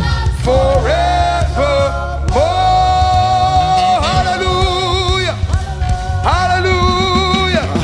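Live gospel praise music: singing over band accompaniment with a heavy bass, the voice holding long notes, several of them a second or more with a slight waver.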